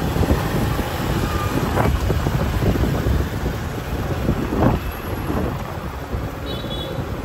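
Dense street traffic of motorbikes and cars running close by, with wind rumbling on the microphone; a couple of vehicles swell louder about two and four and a half seconds in.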